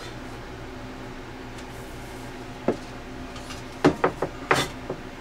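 Steel cover of a Mastech HY3005F-3 bench power supply knocking against the chassis as it is lifted off: one sharp knock about halfway in, then a quick run of about five louder knocks a second later.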